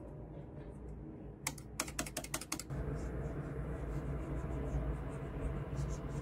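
Keys on a Huion shortcut keypad clicking in a quick run of about eight presses, followed from about three seconds in by a stylus scratching steadily across a pen display's screen as it draws.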